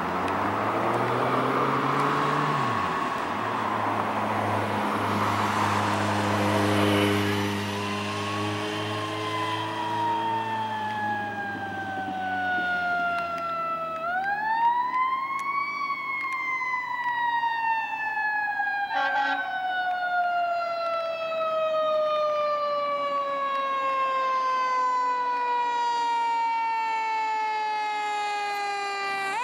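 A 2009 Pierce Velocity fire engine's siren approaching. It is wound up quickly and left to coast down in a long, slowly falling wail, wound up again about halfway through and once more at the very end. A car passes in the first few seconds.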